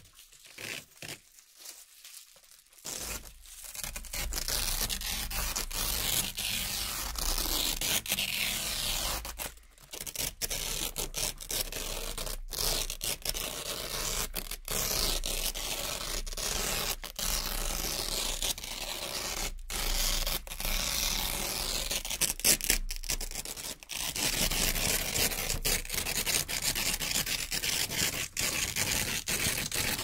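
Velcro strips being pulled apart one after another: a continuous ripping with short breaks between pulls. The ripping is softer and choppy in the first three seconds.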